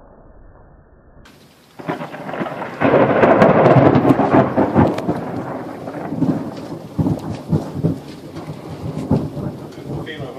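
Thunder from a nearby lightning strike: a sudden loud clap about two seconds in, loudest a second or two later, then a long rolling rumble with crackles as it fades.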